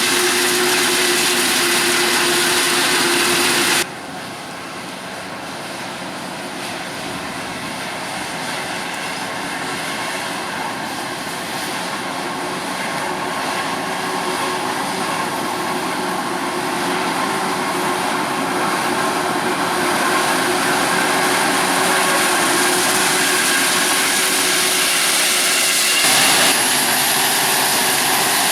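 Heavy farm machinery at a maize silage harvest, a forage harvester and tractors with their engines working under load in a steady, loud din. The sound changes abruptly about four seconds in and again near the end, and between those points it grows slowly louder as the machines come closer.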